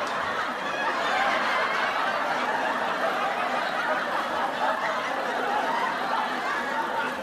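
Canned audience laughter, a crowd laughing steadily after a joke's punchline.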